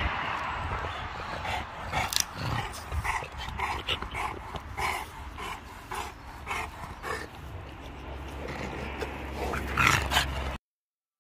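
Squeaky dog toy being worked by a Dogue de Bordeaux, giving short, irregular squeaks about once a second. The sound cuts off suddenly near the end.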